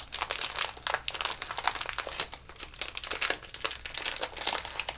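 Blind-bag foil wrapper crinkling as it is handled and opened by hand, in dense irregular crackles with a brief lull midway.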